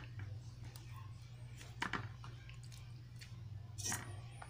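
Quiet handling of raw tilapia pieces being laid into a metal pot: a couple of short knocks, about two seconds apart, over a steady low hum.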